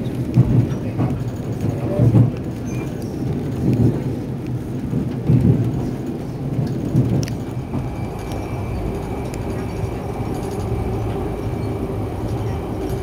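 Passenger train running, heard from inside the car: a steady low rumble with heavier swells about every second and a half, settling into a smoother rumble after about eight seconds.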